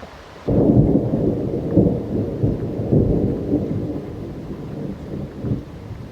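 A roll of thunder breaking suddenly about half a second in, rumbling in several waves and slowly fading, over steady rain.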